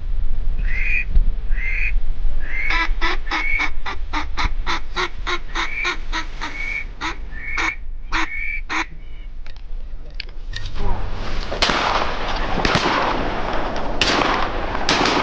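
Mallard quacking: a few separate calls, then a fast, even run of about twenty quacks, roughly three a second. For the last few seconds a loud, even rush of noise takes over.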